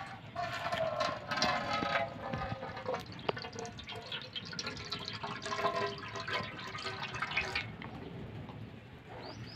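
Cooking oil poured in a thin stream into a hot, empty metal pot, splashing as it pools in the bottom. The pour stops about three-quarters of the way through.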